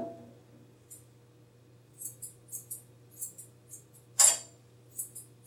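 Curved grooming scissors snipping the hair of a Shih Tzu's tail: a run of short, sharp snips, one louder about four seconds in.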